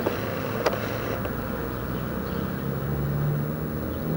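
Low, steady drone of circling military helicopters at a distance, swelling slightly around three seconds in. Two sharp clicks in the first second.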